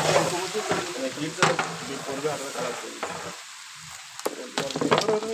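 Giant freshwater prawns frying in oil in a big metal cooking pot, sizzling, while a long flat metal spatula scrapes and stirs them against the pot. The stirring eases off briefly a little past halfway, then comes back with quick scraping strokes near the end.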